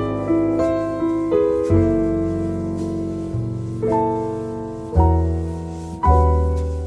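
Instrumental jazz accompaniment: a piano plays slow chords and single notes that ring and fade, a new one struck every second or so, over deep bass notes.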